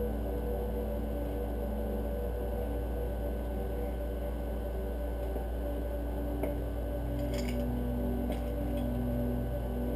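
Steady low hum with a few light clicks and clinks in the second half, as small engine parts are handled.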